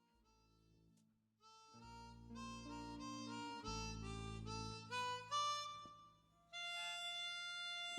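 Harmonica playing a tune over a CB radio channel, a run of held notes changing pitch. It is faint at first, gets louder about a second and a half in, and dips briefly near the end.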